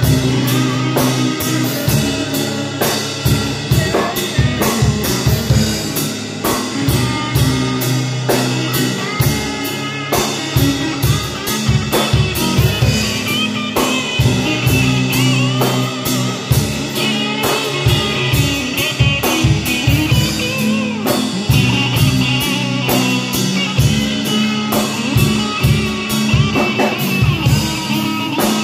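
Electric guitar played through a small Fender combo amp over a live drum kit, a rock band jamming with a steady beat. From about halfway in, a wavering high melodic line rides on top.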